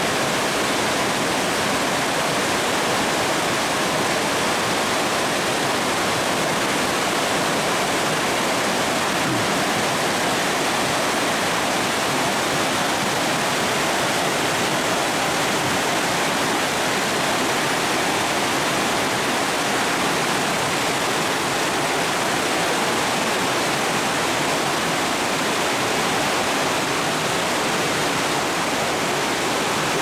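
A rocky mountain stream rushing and splashing over boulders: a steady, even roar of fast-flowing water.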